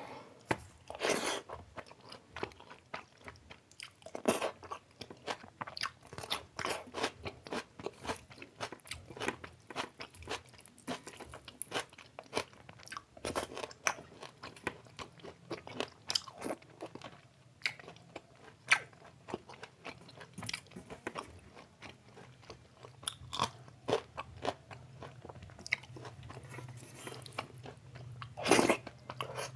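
Close-miked mouth sounds of eating chicken biryani and chicken curry: steady wet chewing and smacking, with short crunchy clicks throughout. Louder bites come about a second in, around four seconds in, and near the end.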